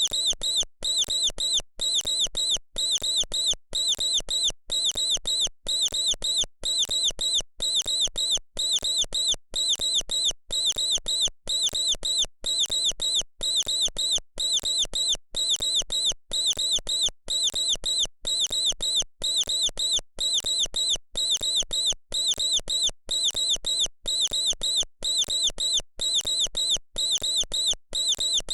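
Mouse squeaking: a short cluster of high, thin squeaks repeated at a regular pace, about every two-thirds of a second, as a looped sound effect.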